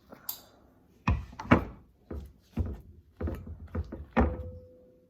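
Fluffy slime being kneaded and slapped by hand: a run of irregular soft thuds, the loudest about a second and a half in.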